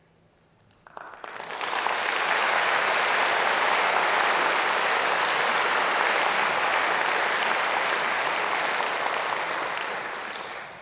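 Audience applauding after a song ends: the clapping starts about a second in, swells quickly, holds steady, then dies away near the end.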